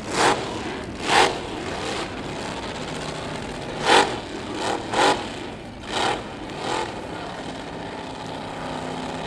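Drag-racing engines: a string of short, loud revs, about eight in nine seconds and irregularly spaced, over a steady engine drone.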